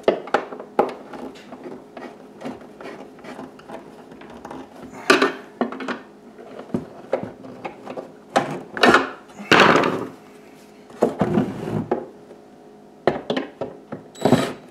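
A screwdriver driving screws by hand into the plastic console subwoofer enclosure of a Jeep Wrangler TJ, with irregular clicks, knocks and scrapes of the tool and the plastic housing. Several louder scraping bursts come about halfway through.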